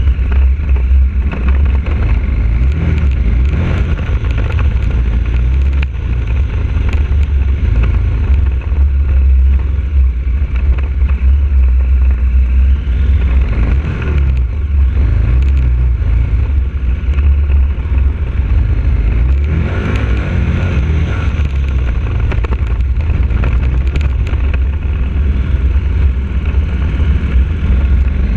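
KTM 1190 Adventure's V-twin engine running under load on a gravel climb, heard from the rider's position, with a heavy low rumble. The engine speed rises and falls about halfway through and again about two-thirds through.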